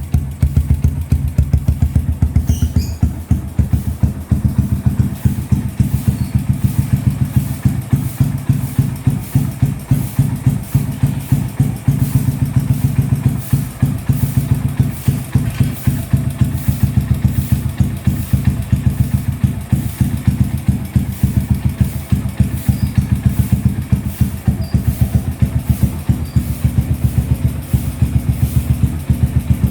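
1982 Kawasaki Binter Merzy KZ200's single-cylinder four-stroke engine idling at a steady speed, its exhaust giving an even, rhythmic thumping beat.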